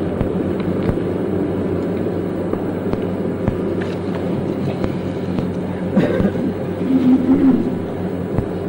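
Steady low hum and rumble of an old recording's background, with a few faint clicks and a brief faint voice about seven seconds in.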